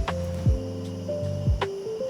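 Background music with a steady beat of deep kick-drum thumps under held synth notes and a simple melody.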